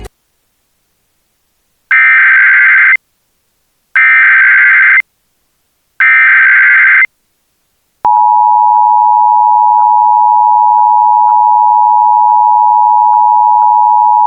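Emergency Alert System header and attention signal: three loud one-second bursts of screechy SAME digital data tones, about two seconds apart, then the steady two-tone EAS attention signal starting about eight seconds in.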